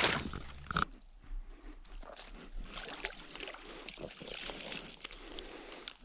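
Crackling and rustling of footsteps over dry sticks, reeds and leaf litter at a dam's edge while a mesh yabby net trap is pulled in and lifted up the bank, with two sharp knocks near the start.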